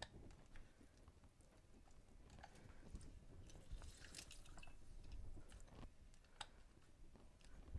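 Near silence with faint scattered clicks and light scraping from kitchen utensils being handled while a drink is mixed.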